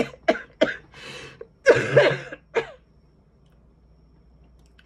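A woman coughing into a cloth held over her mouth: three quick short coughs, then a louder, longer coughing fit about two seconds in, ending with one last cough before it stops. It is a persistent cough that she says will not stop, with antigen tests negative.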